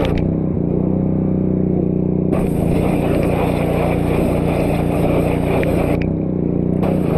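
Pressure washer running with a steady, pitched drone, feeding a sandblast nozzle that sucks in walnut shell. From about two seconds in to about six seconds the blast spray hisses loudly, then cuts off; a short burst follows near the end.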